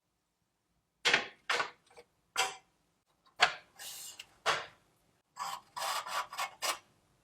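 Rasping scrapes of a hand tool being worked over a surface in separate short strokes. After about a second of silence they come every half second or so, then run more quickly near the end.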